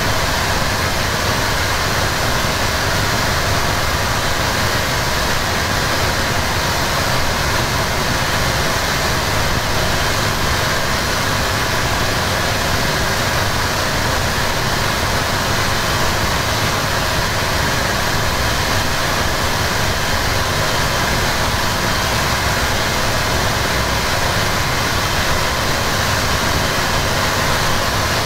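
Harsh noise music: a loud, unchanging wall of distorted noise from a small Korg synth through a Boss MT-2 metal distortion pedal and a cheap radio through a Boss octave pedal, running on without a break.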